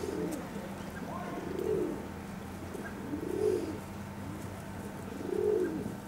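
A dove cooing, four coos about every two seconds, each one rising and then falling in pitch, over a low steady hum.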